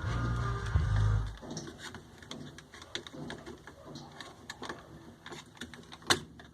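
Scattered clicks and light knocks of tools and metal parts being handled, with one sharp click near the end. A low steady hum runs under the first second and a half, then cuts off.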